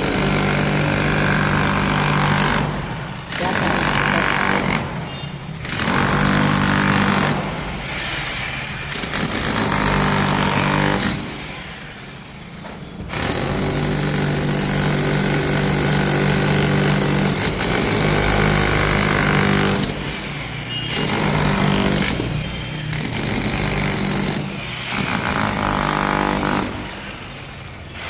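Ralli Wolf RW-5HE 1200 W, 5 kg electric demolition hammer breaking concrete. It runs in bursts of a few seconds with brief pauses between them, and a longer pause of about two seconds near the middle.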